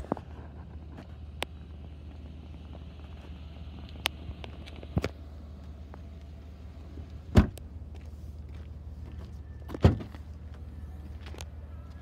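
A 2022 Chevrolet Blazer's doors being handled: small clicks and knocks, then two loud thumps about two and a half seconds apart as doors are shut. A steady low hum from the idling engine runs underneath.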